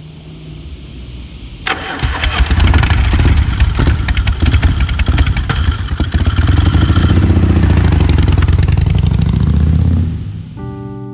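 A motorcycle engine starts suddenly about two seconds in and runs loud, with a fast, uneven popping from the exhaust over a deep rumble. It fades out near the end as piano music comes in. Before it starts, a soft hiss swells up.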